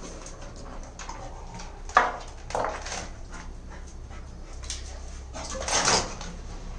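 A beagle whimpering while it paws and mouths a rubber balloon. There are a few louder, sudden sounds: a sharp one about two seconds in, a smaller one just after, and a longer one around six seconds in.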